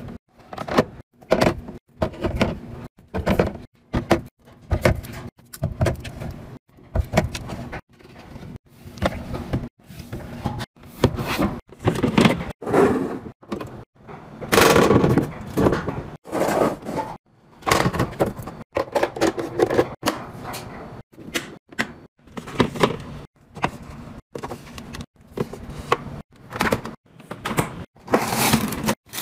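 Household organizing sounds in quick, abruptly cut clips: aluminium soda cans set into a fridge bin, a clear plastic storage container handled, and a refrigerator drawer pulled open.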